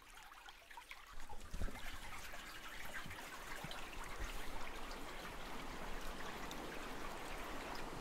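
Babbling brook: water running and trickling steadily, fading up about a second in.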